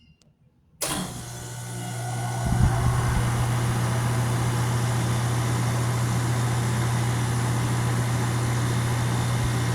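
Outdoor unit of a 2022 two-ton Goodman heat pump starting up in cooling mode: it kicks on suddenly about a second in, builds up over the next two seconds as the fan comes up to speed, then runs with a steady low compressor hum.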